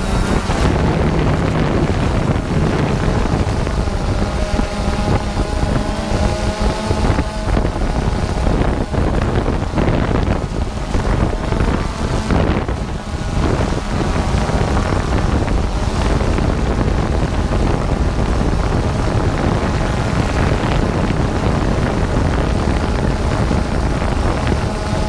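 Strong blizzard wind buffeting the microphone, a steady loud rumbling rush of wind noise.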